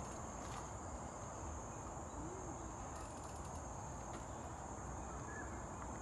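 Steady, high-pitched chorus of insects, over a low, even background of outdoor noise.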